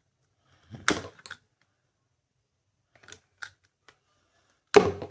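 Plastic clicks of a hand-worn toy disc shooter firing its discs: two sharp clicks about a second in, a few faint ticks after three seconds, and a louder sharp snap near the end.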